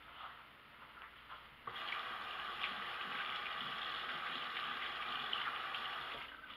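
A few faint knocks, then water running steadily, starting abruptly about two seconds in and stopping near the end.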